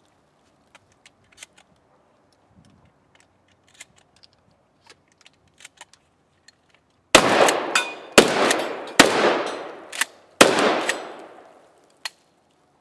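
Faint clicks and rattles of shotgun shells being loaded by hand into a shotgun, then four shotgun shots, the first about seven seconds in and the rest about a second apart, each with a long fading echo. A single sharp click near the end.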